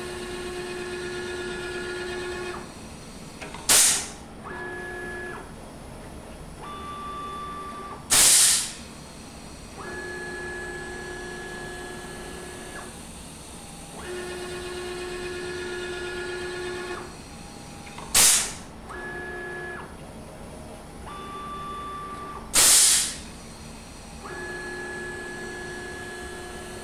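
Automatic tool changes on a CNC router with a CNCDepot S30C ATC spindle. The machine's motors whine in steady tones as the axes and carousel move, stopping and starting between moves. Loud hissing blasts of compressed air come from the spindle's pneumatic drawbar releasing tools, four in all, in two matching cycles.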